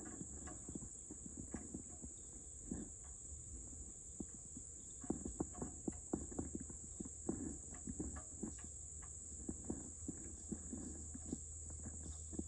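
Faint, irregular small clicks and taps of hand work with small metal parts and tools, over a steady high chirring of crickets.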